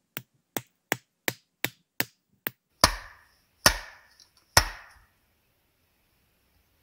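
Hatchet chopping into a dry, dead cedar round to split it: a quick run of seven light, sharp strikes about three a second, then three heavier, louder chops about a second apart.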